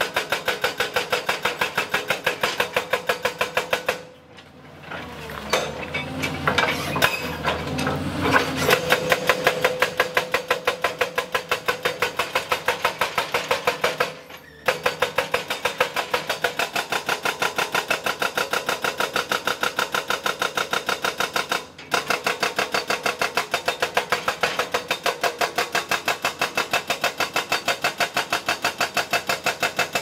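Doosan excavator's hydraulic rock breaker hammering rock: a fast, even train of blows, several a second. About four seconds in the hammering breaks off for several seconds, leaving a lower rumble with scattered knocks, then resumes, with brief stops later on.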